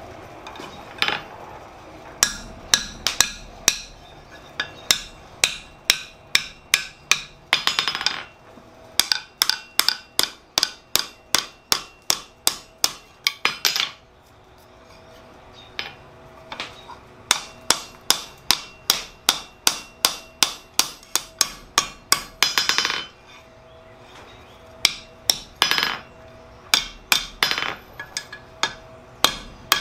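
Hand hammer forging a red-hot steel crowbar's hooked end on an anvil: runs of sharp metal-on-metal blows at about two a second, broken by two short pauses.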